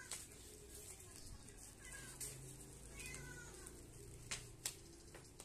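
A cat meowing faintly a few times, each a short call falling in pitch, over light rustling of plastic wrap on a cardboard parcel. Two sharp clicks near the end are the loudest sounds.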